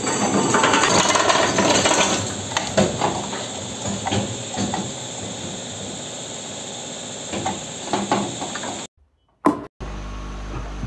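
Tyre buffing machine grinding the worn tread off a spinning tractor tyre with a rotary rasp: a rough, uneven scraping with many short clicks, loudest in the first couple of seconds. About nine seconds in it breaks off and gives way to a low steady hum.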